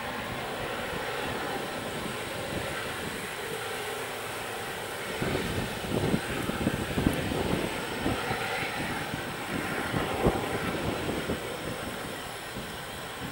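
Aurizon diesel-electric locomotives working hard as they haul a heavy loaded coal train up a grade: a steady engine drone and rail rumble that grows louder and rougher about five seconds in as the locomotives draw closer.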